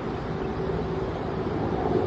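Wind buffeting the microphone over a steady low background rumble.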